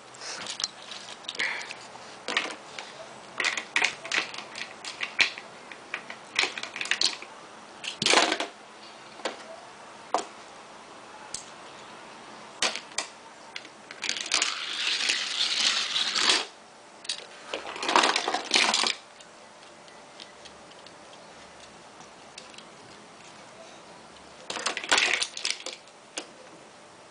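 Die-cast Hot Wheels toy cars and their plastic playset being handled: irregular small clicks and clacks of metal and plastic, with three short rattling runs, the longest about two seconds.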